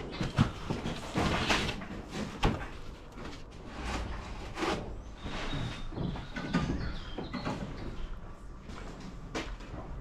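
Irregular knocks, scrapes and rustles of someone moving about and handling things on a building site, sharp knocks now and then, loudest near the start and about two and a half seconds in.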